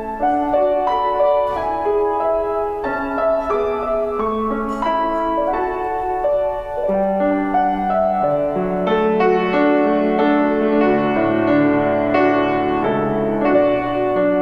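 Grand piano playing a slow, flowing instrumental piece; lower bass notes join about seven seconds in and step downward near the end.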